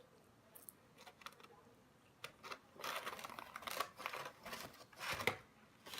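Handling noise: scattered light clicks and taps, then a couple of seconds of rustling and crinkling, with a shorter burst near the end, from food and fast-food packaging being handled.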